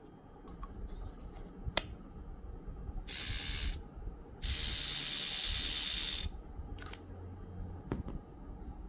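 Wahl Micro Groomsman pen trimmer's motor and cutter running in two short spells, first under a second and then about two seconds, each starting and stopping abruptly, with sharp clicks before and after.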